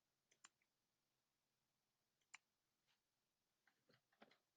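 Near silence with a few faint clicks from computer use: one near the start, one about halfway, and a small cluster near the end.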